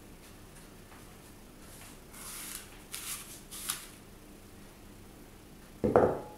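A few soft rustling handling sounds, then near the end a ceramic bowl is set down on the table with a single sharp knock and a brief ring.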